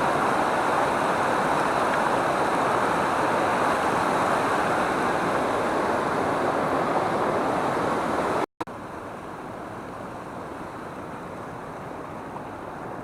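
Waterfall: a steady rush of falling water. About eight and a half seconds in it breaks off for an instant and goes on noticeably quieter.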